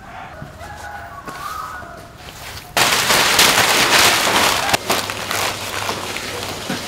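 Newspaper being crumpled and stuffed by hand, a sudden loud crackling rustle that starts about three seconds in and goes on to the end. Before it come only small scattered ticks and handling sounds.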